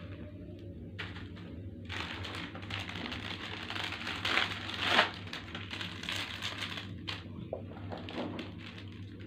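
Plastic snack packets crinkling and rustling as they are handled, with irregular small crackles and a sharper crackle about five seconds in.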